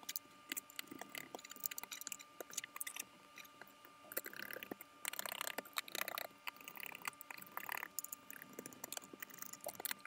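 Faint, rapid scattered clicks and scrapes of a screwdriver driving small screws into a laptop's metal bottom panel, sped up.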